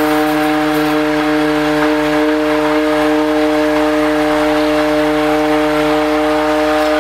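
Handheld stick blender running at a steady speed while submerged in a bucket of liquid soap oils: a loud, steady motor whine.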